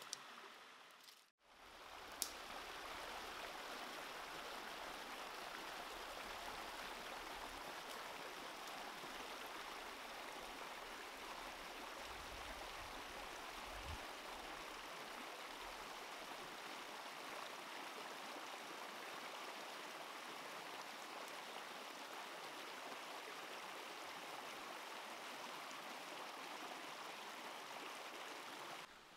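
Steady rushing of a shallow stream running over rocks. It begins after a short break about a second in.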